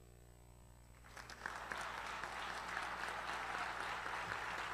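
Audience applauding: a brief hush, then clapping that starts about a second in and builds to a steady round of applause.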